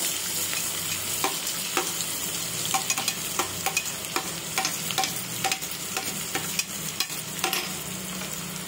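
Chopped onions sizzling as they are tipped into hot oil with cumin seeds in a non-stick kadai, a steady frying hiss with many sharp ticks and clicks scattered through it.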